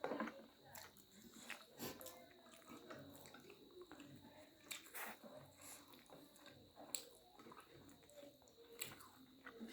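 Faint chewing and eating sounds from people eating chowmein with dried buffalo meat (buff sukuti), with soft irregular mouth smacks and small clicks scattered through.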